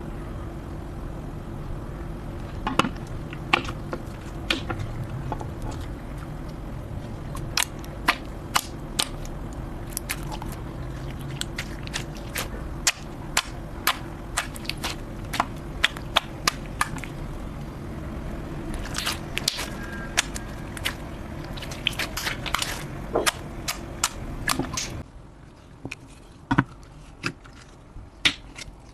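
Slime being squeezed and poked by hand, giving sharp, irregular clicking pops over a steady low hum. About 25 seconds in, the hum drops away and the clicks turn sparser and quieter.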